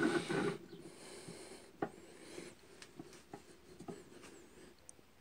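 Light metal clicks and scrapes as a KAMAZ transfer-case differential spider gear is slid onto its pin and turned by hand, trial-fitting it in freshly reamed bushings; a handful of scattered taps.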